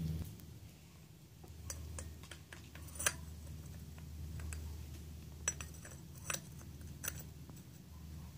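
Light metallic clinks as a Suntour 19-tooth sprocket is slid onto a bicycle coaster-brake hub and seated on its splines. There are about six sharp clinks, the loudest about three seconds in.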